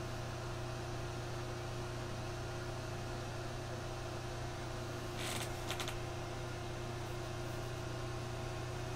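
Steady low electrical or fan hum of room noise, with a few faint short clicks or taps a little over five seconds in.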